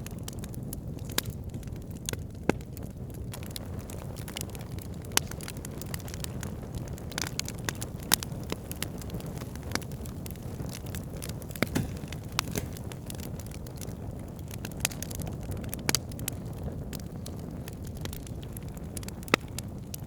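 Wood campfire burning: a steady low rumble of flames with irregular sharp pops and crackles from the burning logs, a few louder snaps scattered through.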